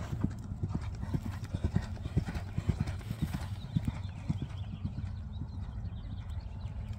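A horse's hoofbeats on sand arena footing: a quick run of dull thuds that grow sparser and fainter after about four and a half seconds as the horse goes away.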